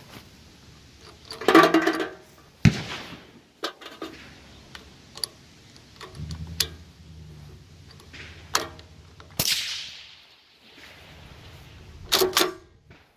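Replica Browning AN/M2 'Stinger' .30-calibre machine gun being worked and fired in short bursts. There are metallic clacks from handling the action, and several sudden loud reports, the loudest about one and a half and two and a half seconds in, with another tight burst near the end.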